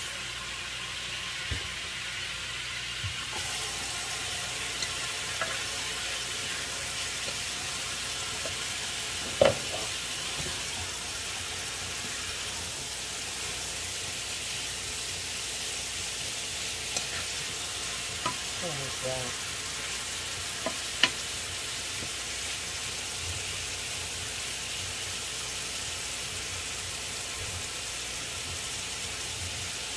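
Beef strips frying in a skillet, a steady sizzle, stirred with a wooden spatula that scrapes and knocks against the pan a few times, the sharpest knock about a third of the way in.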